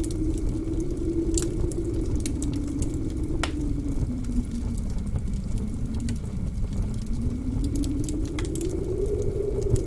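Blizzard wind howling over a low rumble, its pitch slowly sinking through the middle and rising again near the end, with scattered sharp pops and crackles from a wood fire in a fireplace.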